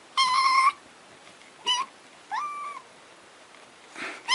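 A cat meowing three times in high calls: a held meow at the start, a short one a little later, and one that rises and then levels off.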